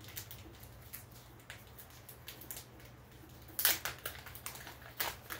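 Small plastic bag of pigment powder crinkling and rustling in gloved hands: short scattered rustles, with louder crinkles a little past halfway and again near the end.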